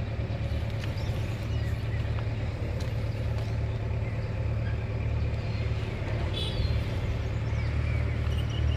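Steady low outdoor rumble, with a brief high chirping about six and a half seconds in.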